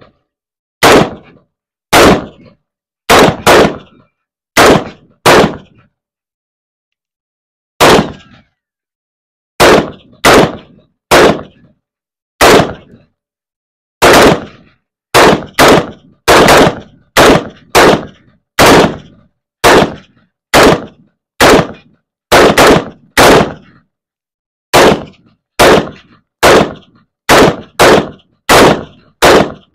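Two short-barrelled AR-style rifles fired in turn, single shots at an uneven pace, about thirty in all, with one pause of about two seconds a little before a quarter of the way in.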